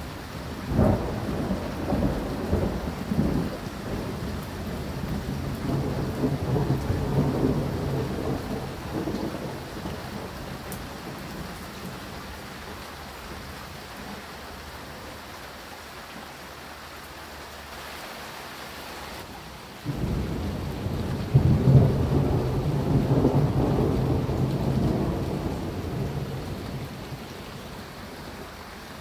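Two long rolls of thunder over steady rain. The first begins sharply about a second in and rumbles for several seconds. The second starts suddenly about two-thirds of the way through, peaks a moment later and rolls away.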